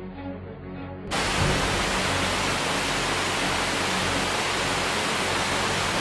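A loud, steady rush of fast-flowing flood water at a waterfall, an even roar that cuts in about a second in and stops suddenly at the end, with background music underneath.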